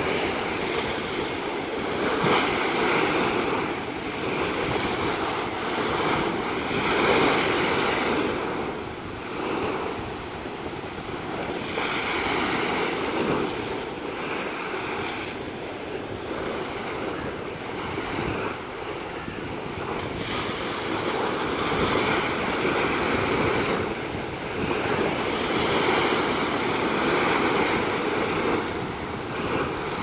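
Rough sea surf breaking and surging against a stone seawall, a continuous wash of water that swells and eases every few seconds.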